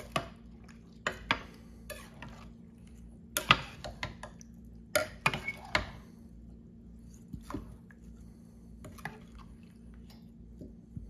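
A spoon stirring chicken, rice and broth in the stoneware crock of a Hamilton Beach slow cooker: irregular clinks and knocks of the spoon against the pot with some wet sloshing, loudest in the middle. A steady low hum sits underneath.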